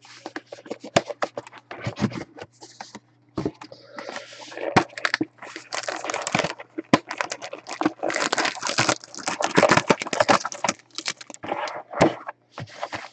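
A cardboard trading-card box being opened by hand, with many short scrapes, crackles and clicks, and a foil-wrapped card pack crinkling as it is lifted out near the end.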